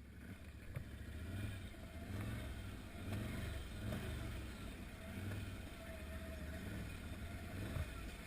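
Can-Am Outlander 800 XT ATV's V-twin engine running with a low rumble, its throttle swelling and easing a few times. The sound fades up over the first second or so.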